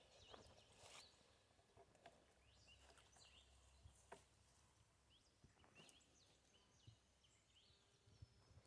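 Near silence outdoors: faint bird chirps scattered throughout, with a few faint clicks.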